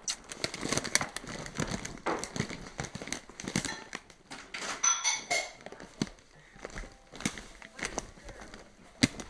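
Irregular scuffs, rustles and clicks of footsteps on a hard floor and a handheld camera being carried, with a brief high squeak about five seconds in.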